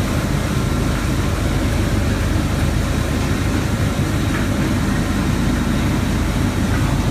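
Waste plastic film washing line running: a steady, loud, heavy low machinery drone with an even noisy wash over it.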